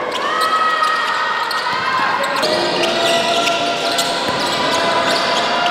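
Basketball dribbled on a hardwood court during live play, with sharp bounces amid voices and long held tones echoing around the gym.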